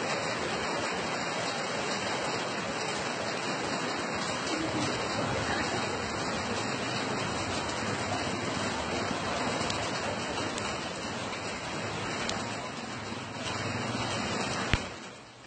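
Flash-flood water rushing steadily, with one sharp click near the end.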